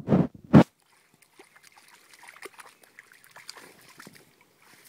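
A dog splashing about in a shallow muddy puddle, pawing at the water: two loud splashes in the first second, then softer sloshing and patter.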